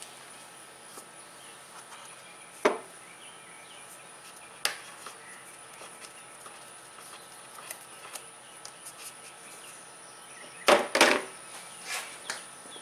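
Scattered knocks and clunks of hands working on a Kubota Z421 zero-turn mower's engine area: single knocks about three and five seconds in, and a quick cluster of louder clunks about eleven seconds in. Under them is a faint steady background with a thin high tone.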